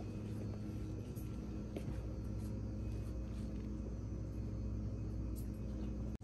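Steady low hum of a shop's background machinery, such as ventilation or coolers, with a few faint light clicks and rustles.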